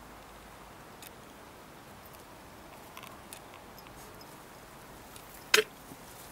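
Small puppies play-wrestling in grass: a quiet background with a few light clicks, then one short, sharp sound about five and a half seconds in.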